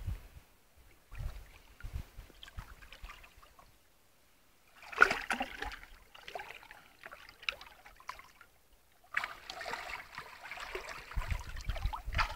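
Shallow lake water splashing and trickling around a large carp held by hand and released, in bursts about five seconds in and again from about nine seconds on, with low rumbles on the microphone.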